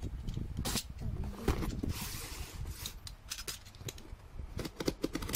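Parcel packaging being cut open and handled: a run of small crinkling clicks, with a brief hissing tear about two seconds in.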